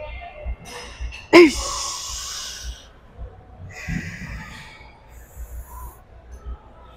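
A woman breathing hard and straining through seated leg curls, close on a clip-on microphone. About a second and a half in comes a sudden grunt that drops in pitch and trails into a long breath out, and another forceful exhale follows around four seconds in.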